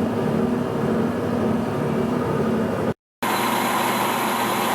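Steady hum of a metalworking machine running, cut off abruptly about three seconds in. A different steady machine sound with a higher whine follows: the metal lathe running with a bushing blank in the chuck.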